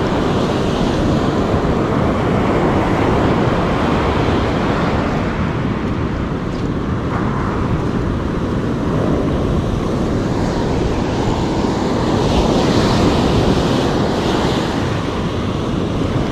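Ocean surf breaking and washing up a sandy beach, mixed with wind buffeting the microphone: a steady, unbroken rush with a low rumble.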